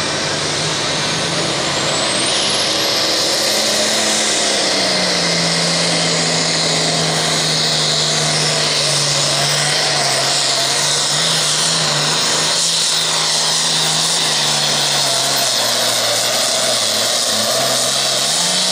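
Turbocharged diesel engine of an International super farm pulling tractor running at full throttle down the track. A high turbo whine rises over the first few seconds as the turbo spools up, then holds high over a steady engine note.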